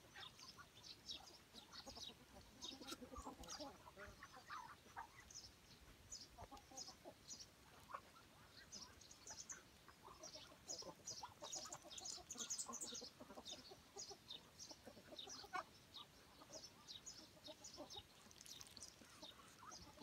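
Faint clucking from a feeding flock of chickens and Muscovy ducks, with many short high chirps throughout that grow busier and louder about twelve seconds in.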